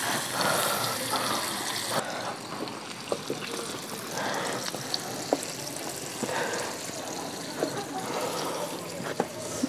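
Kebabs deep-frying in a wok of hot oil: a steady sizzling hiss, with scattered sharp clicks and taps of a slotted metal spoon against the pan as they are turned.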